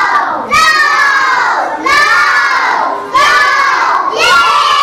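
A class of young children shouting a word together in chorus, over and over. A new loud call starts about every second and a quarter, and each one slides down in pitch.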